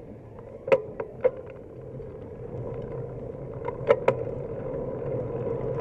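Bicycle in motion heard from a handlebar-mounted camera: steady tyre and road noise that slowly grows louder, with sharp knocks and rattles, three close together about a second in and two more about four seconds in.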